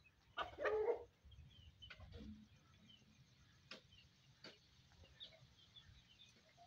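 Aseel chicken giving one short loud cluck about half a second in, followed by faint high peeps and a few soft clicks.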